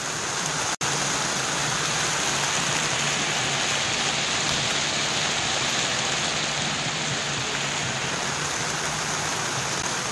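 Steady rain falling, an even hiss that cuts out for an instant just under a second in.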